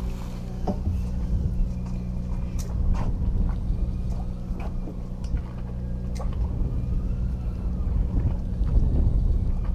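Steady low drone of a boat's engine running, with scattered light clicks and knocks over it.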